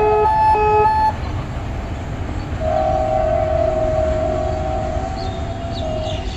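A level-crossing warning alarm with a rapidly repeating beep cuts off about a second in; then a locomotive horn sounds one long blast of about three and a half seconds, over a low rumble.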